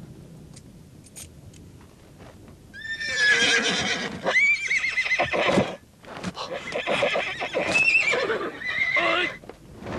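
Horses neighing: after a quiet start with a few faint clicks, loud quavering whinnies come in two spells, the first about three seconds in and the second about six seconds in.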